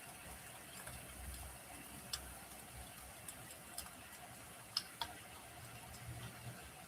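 Wood fire crackling softly: scattered sharp pops and ticks from the burning logs over a faint steady hiss and low rumble, with the loudest pop about two-thirds of the way through.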